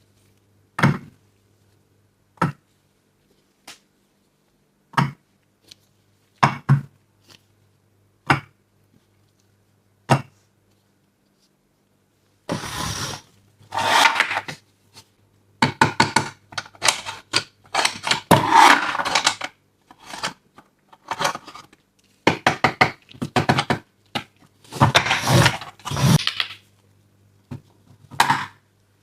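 Small toy pieces being handled and set down: single sharp taps and clicks every second or two, then from about twelve seconds in a dense run of clattering and rattling.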